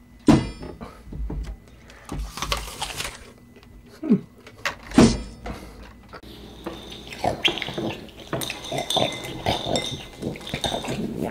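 Two loud sudden knocks, one near the start and one about five seconds in. From about six seconds in there is a run of light clinks, a spoon against ceramic cereal bowls.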